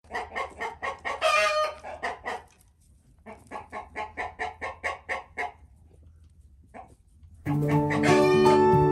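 Chicken clucking in quick runs of short notes, about four or five a second, with one longer drawn-out call about a second in. Plucked-string music comes in near the end.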